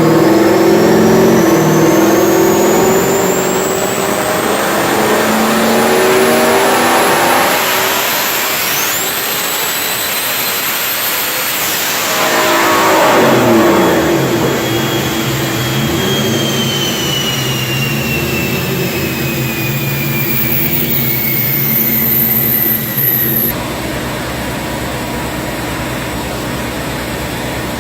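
Turbocharged Ford Mustang Cobra "Terminator" 4.6 L V8 with a Bullseye Power 76NLX turbo, running and being revved. A high turbo whistle climbs steadily as the turbo spools, later a lower whine falls away as it winds down, and near the end the highest whistle cuts off suddenly and the engine drops to a steadier note.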